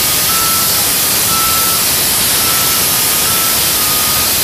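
Loud steady hiss of compressed air venting from a NABI 40-SFW transit bus's air system, with a faint broken high tone behind it.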